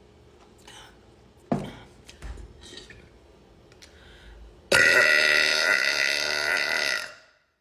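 A person's long, loud burp lasting a little over two seconds, starting near the end, after a short knock about a second and a half in.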